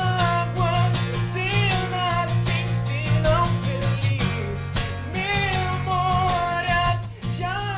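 Pop-rock song with a voice singing over guitar and drums, a steady beat running through.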